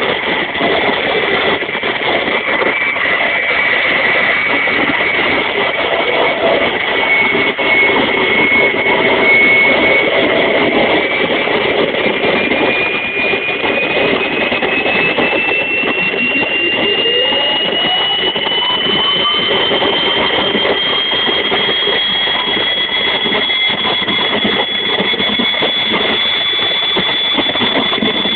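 Experimental home-built gas turbine engine running: a steady combustion roar under a high whine. One whine tone climbs slowly in pitch through the middle and then holds level, and a shorter rising tone sweeps up briefly partway through.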